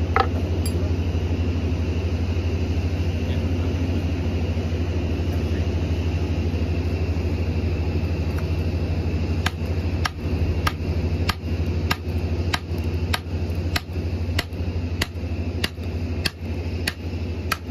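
An engine running at a steady idle, with a hand hammer striking metal in even blows about every 0.6 s from about halfway through, as the crane's hoist-drum part is worked on for resealing.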